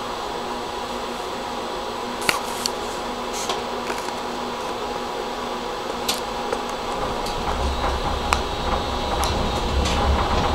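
Tram standing with a steady electrical hum and a few scattered clicks, heard from inside the cab, then pulling away about seven seconds in with a low rumble that builds as it gets moving.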